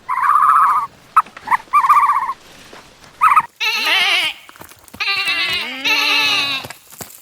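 Repeated bleating from livestock. First come a few short, quavering, higher calls, then from about halfway in, longer, harsher bleats that fall in pitch, from more than one animal, overlapping.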